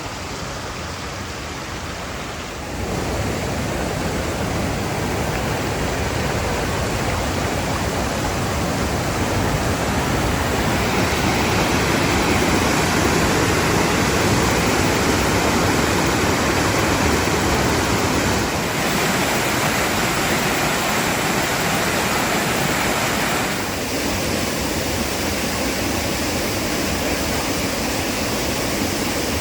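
A waterfall rushing: a loud, steady roar of falling water that grows louder about three seconds in.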